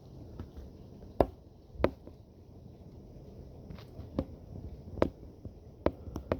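About seven sharp, irregular taps over a low steady rumble, two of them louder in the first two seconds and a quick cluster near the end.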